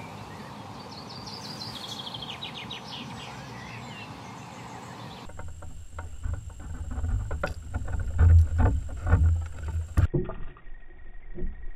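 Outdoor ambience with a songbird singing a short descending trill in the first couple of seconds. From about five seconds in, the muffled low rumble and knocking of water against an underwater camera follow, with scattered clicks.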